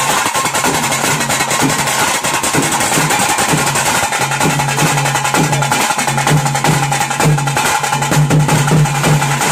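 Fast, continuous drumming of a tiger-dance drum troupe: rapid sharp strokes on tase drums over a repeating deeper beat, which grows stronger about halfway through.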